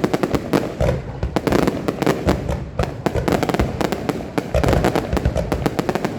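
Fireworks display: a dense, rapid barrage of bangs and crackles from aerial shells, with deep booms underneath.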